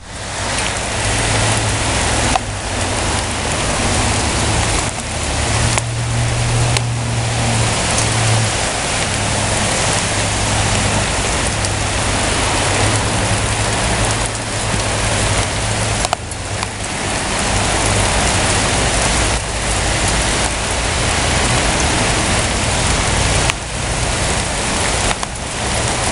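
Heavy rain mixed with hail falling, a dense, steady patter of drops and small ice pellets hitting the yard.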